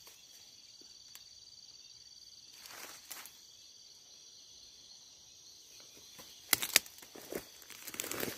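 Night insects chirring steadily, with someone moving through dry undergrowth: a brief brush of leaves about three seconds in, then loud crackling and rustling of stems and leaf litter near the end.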